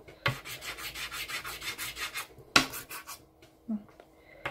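Black soft pastel stick scratched quickly back and forth on paper, about six strokes a second, then stopping. A single sharp tap about two and a half seconds in, followed by a quieter stretch.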